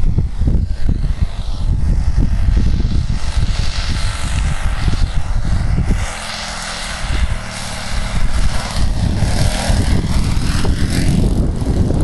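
A model aircraft's SC 120 four-stroke glow engine and propeller drone as the plane flies low on approach to land, heard through heavy, gusty wind rumble on the microphone. The wind rumble eases briefly about halfway through.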